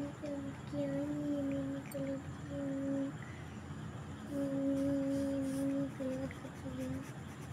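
A person humming a simple tune in held notes, phrase after phrase with short breaks between them.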